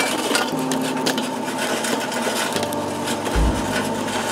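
Charcoal tumbling out of a metal chimney starter onto a bed of coals in a kettle grill: a continuous, irregular clatter of small knocks and scrapes.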